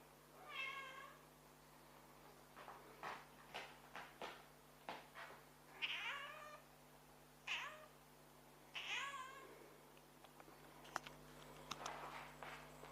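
A pet cat meowing several times, short separate meows a second or two apart, with a few faint clicks between them.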